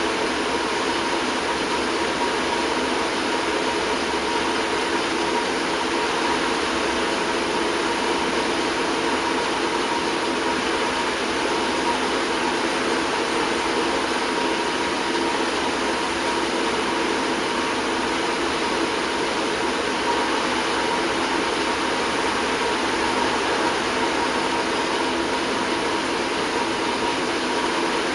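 Steady mechanical hum and hiss, even in level, with a faint high whine over it.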